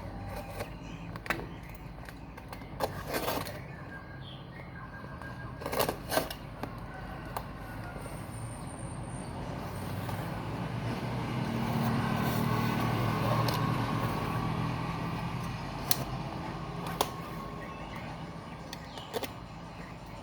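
Packaging being handled for a laptop screen unboxing, with scattered sharp clicks and knocks. A low engine-like hum swells and fades in the middle.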